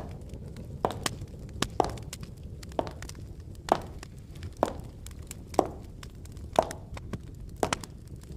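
Footsteps, sharp and evenly paced at about one step a second, over a low steady background rumble.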